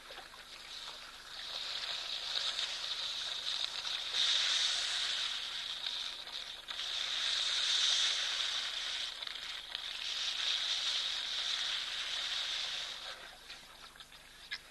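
Buzzing insect chorus, a shrill high-pitched drone that swells and fades in long waves and drops away near the end.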